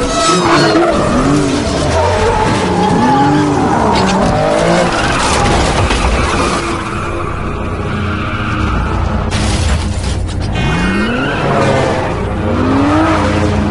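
High-speed car chase: car engines revving hard, their pitch rising and falling again and again, with tyres squealing over a film music score. About nine and a half seconds in there is a short, loud, noisy burst.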